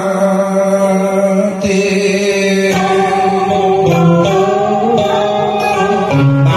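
Man singing a Vietnamese song through a karaoke microphone over a backing track, holding long notes with a slight waver.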